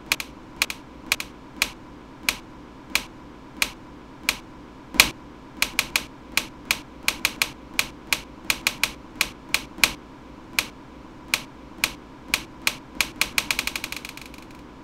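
Sharp, dry clicks at an irregular pace, one to three a second. Near the end comes a quick run of clicks that speeds up and dies away, over a faint steady tone.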